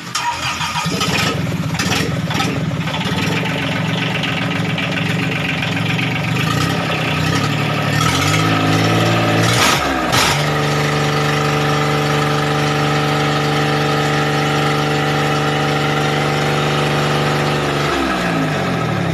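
Yanmar three-cylinder 13 hp marine diesel engine on a test run. It idles, is revved up about eight seconds in and held at a higher steady speed, then is throttled back down near the end.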